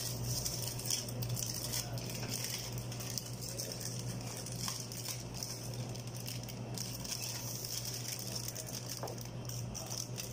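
Aluminium foil being peeled back and crumpled off a baking tray, in irregular crinkling rustles, over a steady low hum.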